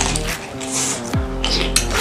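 Background music with sustained notes and a deep bass note sliding down in pitch about a second in, over faint clinks of a spoon against a plate.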